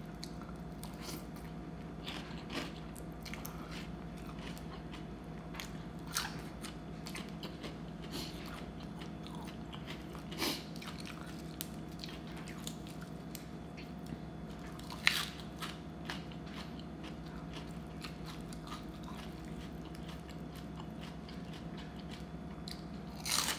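A person chewing and crunching food close to the microphone, eating rice noodles in spicy fish curry with raw greens and crispy pork rinds, with scattered sharp crunches over a steady low hum.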